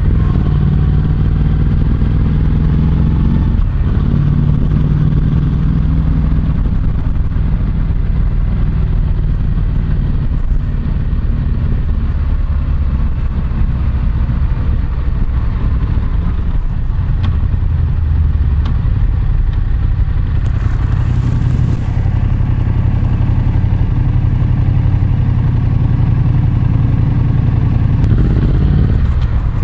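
Yamaha MT-07's parallel-twin engine running through an SP Tadao Power Box full exhaust while riding at low speed: the revs fall over the first few seconds, then a steady low exhaust note. It is picked up by a microphone wrapped in a bandana in the rider's jeans pocket, with rustling from the jeans' waterproof coated lining.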